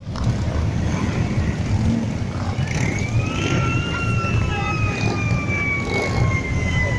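Several cruiser motorcycles riding slowly past in a procession, their engines running with a low, uneven throb. From a few seconds in, a long siren-like tone rises briefly and then slowly falls over it.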